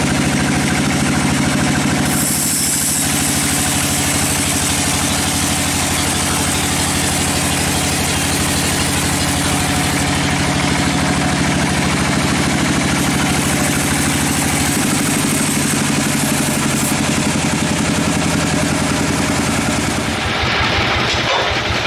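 Sawmill machinery running with a steady engine drone. A high hiss comes and goes over it, and the sound turns rougher near the end.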